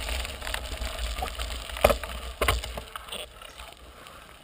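Mountain bike rolling up a gravel road: tyres crunching on the gravel with a few sharp knocks and rattles from the bike. Wind rumbles on the camera microphone and eases off about three seconds in.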